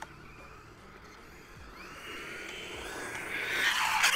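Brushless motor of an XLF F11A 1/10 RC monster truck whining, rising in pitch and getting louder from about halfway in as the truck accelerates.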